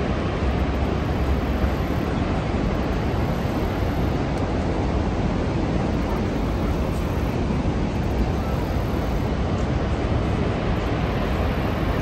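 Steady rush of a large waterfall, Niagara's Horseshoe Falls, as an even, unbroken wash of falling water heaviest in the low end.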